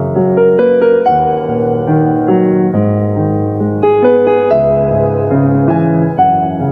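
Background piano music: a melody of held notes changing about every half second over lower bass notes.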